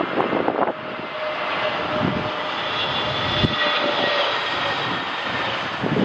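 Jet airliner engines running with a loud, steady whine. Gusts of wind buffet the microphone now and then.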